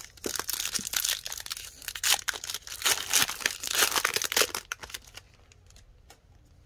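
A trading-card pack wrapper being torn open and handled: many quick crackles for about five seconds, then it stops.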